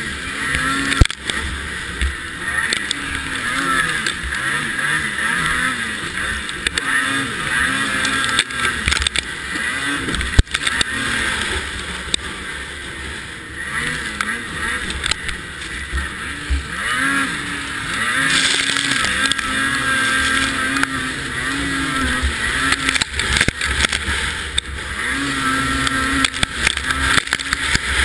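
Racing snowmobile engine heard from on board, its pitch rising and falling again and again as the throttle is worked. Sharp knocks come through several times as the sled hits bumps, the loudest about a second in.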